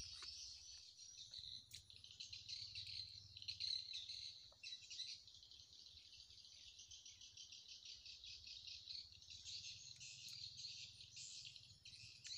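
Faint, steady chorus of insects: a continuous high-pitched, finely pulsing trill.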